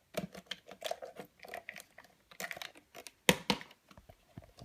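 Plastic parts of a cordless stick vacuum being handled: an irregular run of light clicks and rattles, as the dust container and air filter are taken apart, with two sharper clicks about three and a half seconds in.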